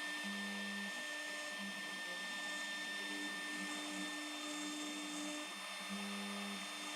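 CNC router running a 90-degree V-grooving bit through composite decking: a steady spindle whine, with a lower hum from the machine's drive motors starting and stopping as the cutter moves from stroke to stroke.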